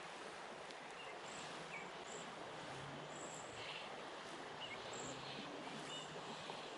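Steady hiss of flowing creek water, with scattered short, faint, high chirps through it.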